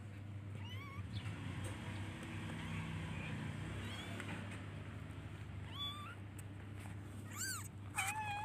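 Very young kittens meowing: about five or six short, thin, high cries spread through, the loudest and longest near the end. They are calling for their mother.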